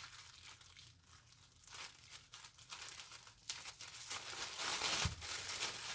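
Parcel packaging crinkling and rustling as it is handled: plastic bubble wrap and paper crackling in quick irregular bursts, sparse at first and getting louder and busier about three and a half seconds in.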